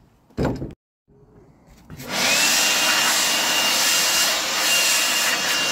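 Cordless blower switched on about two seconds in, its motor spinning up to a steady high whine over a loud rush of air as it blows polystyrene crumbs off the scaffold boards. A short burst of noise comes just before it starts.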